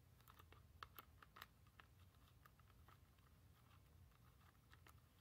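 Near silence with faint, scattered clicks and scrapes of a small screwdriver working at the screws in a Furby's plastic shell, two clicks a little louder about a second in.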